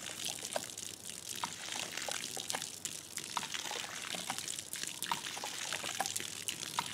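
A thin stream of water pouring from the spout of a hand-worked cast iron pitcher pump and splattering on the ground, with many small splashes and drips. The newly driven sand point well has been primed and is now bringing up water.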